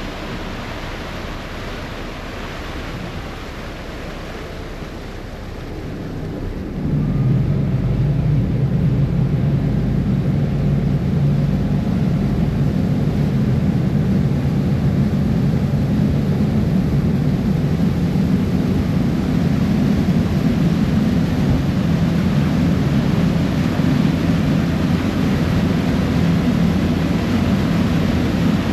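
Harbour ferry's engine drone over the rush of water churned up in its wake. About a quarter of the way in the drone comes in suddenly much louder and then holds steady.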